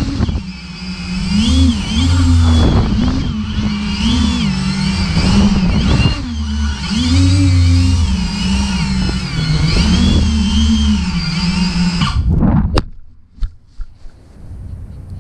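Tornado T7 4215 brushless motors and propellers of a large X Class racing drone, heard close from the onboard camera, whining and swinging up and down in pitch with the throttle. About 13 seconds in the sound cuts off suddenly with a knock as the drone touches down on the grass and the motors stop, leaving a faint low hum.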